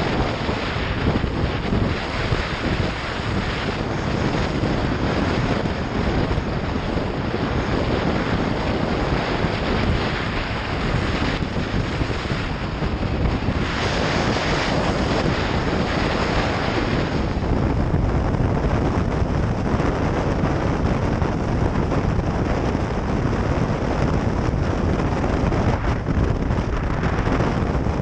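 Riding on a motorcycle: wind rushing over the microphone mixed with engine and road noise, a steady loud roar that swells briefly about halfway through.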